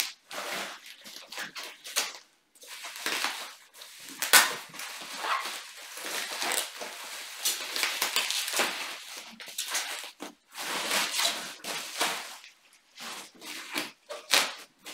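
Plastic bubble wrap crinkling and rustling in irregular bursts as it is pulled off a flat cardboard-wrapped package, with scattered sharp crackles.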